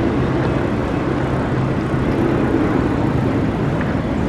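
Wind buffeting the camera's microphone outdoors: a loud, steady rush with heavy low rumble.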